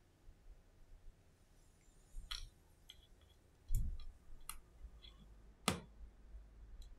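Sharp, scattered clicks and light taps from small parts of an iPhone XS replacement screen being handled and pressed into place by hand, about four distinct clicks in a few seconds.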